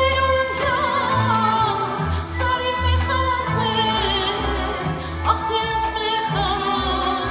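A woman singing live into a microphone, holding long notes with vibrato, over instrumental accompaniment with a steady bass line.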